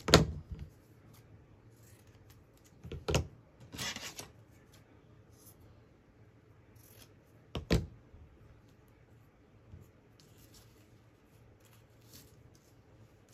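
Craft scissors being handled on a cutting mat: three sharp clacks, one right at the start, one about three seconds in and one near eight seconds. A short papery rustle follows the second clack, and there is faint scratching of paper later on.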